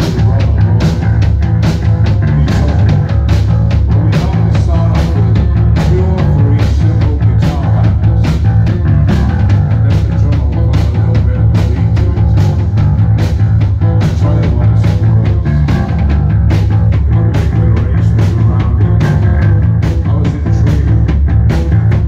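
A post-punk rock band playing live and loud: drums keeping a steady beat under electric guitar, bass and a male lead vocal, with heavy bass.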